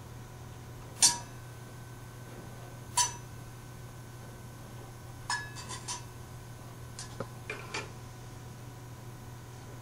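Tableware clinking as dishes and cutlery are set down and handled on a table: two sharp, ringing clinks about two seconds apart, then a few quicker, lighter clinks and taps. A steady low hum runs underneath.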